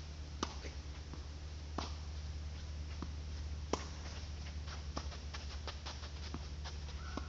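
Tennis rally: sharp pops of the racket striking the ball and the ball bouncing on the hard court every second or two, with lighter scuffing footsteps in between, over a steady low hum. A short squeak comes near the end.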